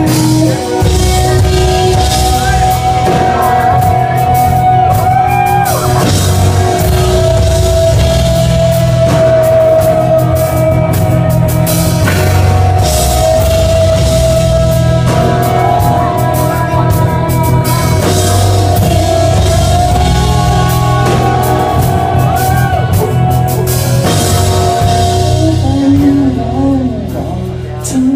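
Rock band playing an instrumental passage between sung lines, with drum kit and guitar; a lead line holds long notes with slight bends. It eases off near the end.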